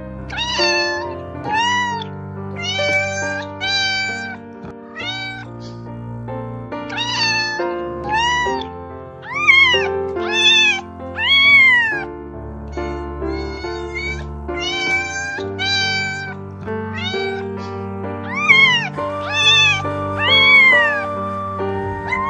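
Domestic cats meowing over and over, short meows that rise and fall in pitch at about one a second, the loudest near the middle and toward the end. Soft background music with long held notes plays underneath.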